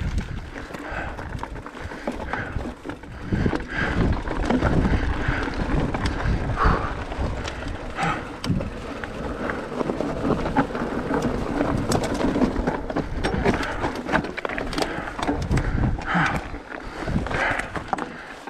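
Enduro mountain bike riding over a rocky trail: a steady clatter and rattle of the bike and tyres over loose rocks, with frequent knocks and a rumbling noise underneath.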